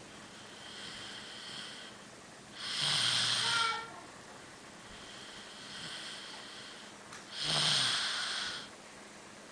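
A person snoring loudly through the nose: two loud snores about four and a half seconds apart, with quieter breaths between them.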